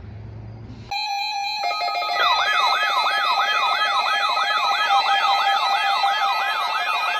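NOAA Weather Radio warning alarm test: a steady alert tone comes on about a second in. Soon after, a weather alert radio's warbling alarm joins it, a rising sweep repeated about three times a second.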